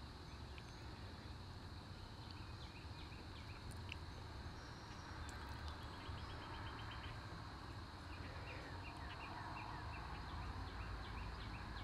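Faint outdoor ambience: small birds chirping on and off, with a quick run of chirps about halfway through, over a low steady rumble.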